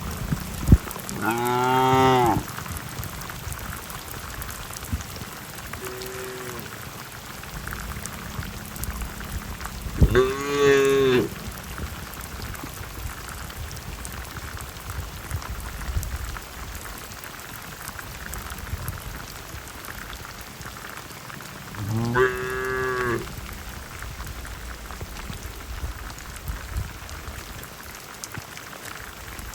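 Cattle mooing over the steady hiss of heavy rain: three long moos roughly ten seconds apart, the first about a second in, and a faint short one between the first two.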